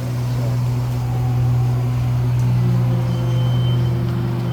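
Getty Center tram running with a steady low hum. A short high steady tone sounds near the end.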